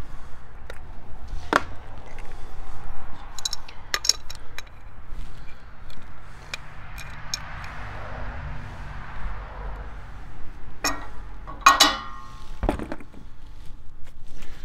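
Scattered clinks and knocks of a large adjustable wrench and brass fittings being handled on an aluminium RV twin-tank propane regulator. The loudest is a ringing metal clink near the end. Under them is steady road-traffic noise that swells and fades in the middle.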